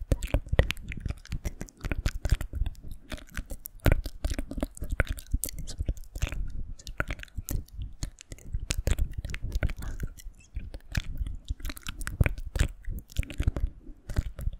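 Close-miked ASMR mouth sounds: a rapid, unbroken run of wet clicks and smacks.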